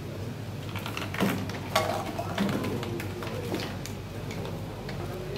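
A wooden Rube Goldberg machine running, its moving parts giving a series of irregular clicks and knocks, the loudest about a second in, a half second later, and near the middle. A crowd murmurs underneath.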